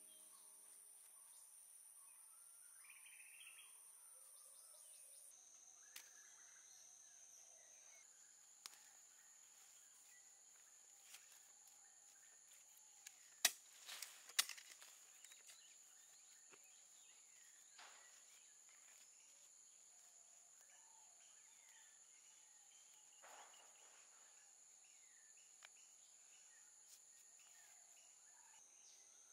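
Faint sounds of hands digging in loose soil: soft scraping and rustling, with a few sharp clicks about halfway through. Underneath runs a steady high-pitched insect drone.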